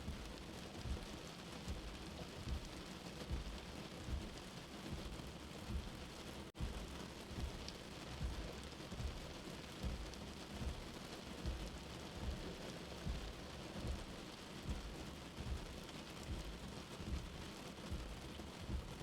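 Steady rain with a soft, low heartbeat thumping evenly about once every 0.8 seconds. The sound drops out for an instant about six and a half seconds in.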